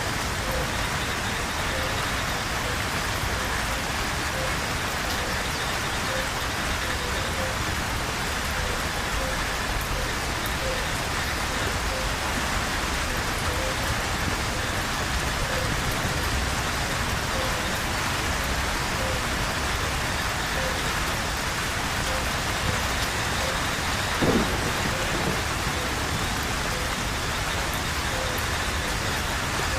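Steady rain falling on foliage and ground. A faint pip repeats about once a second throughout, and about 24 seconds in a short sound falls in pitch, briefly the loudest thing.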